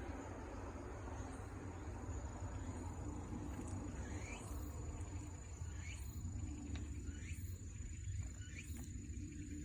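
A steady high-pitched insect trill, with a run of short downward-sliding chirps repeating about once a second from a few seconds in, over a low rumble.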